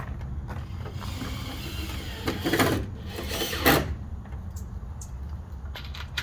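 Footsteps on gravel ground with a steady low rumble, scattered small clicks, and two louder scuffing noises about two and a half and three and a half seconds in.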